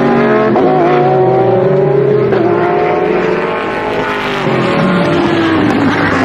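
Several GT race car engines running at high revs as they pass, with overlapping engine notes that rise and fall as the cars shift and brake. There is a brief slight drop in level about four seconds in.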